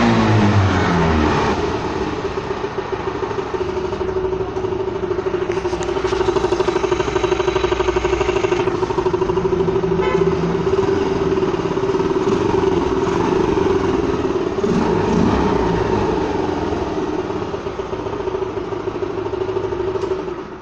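Yamaha Ray ZR scooter's single-cylinder engine, breathing through an open aftermarket pod air filter instead of the stock airbox, which gives it a louder intake sound. It comes down from a rev into a steady idle, picks up slightly a few seconds in, and cuts off at the end when it is switched off.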